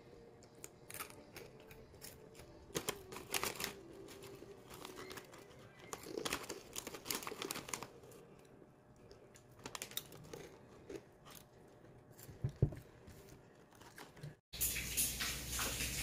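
A pen writing on notebook paper, scratching in short bursts of strokes, with the paper rustling under the hand and a soft thump about three-quarters of the way through. Near the end it gives way to a louder steady hiss.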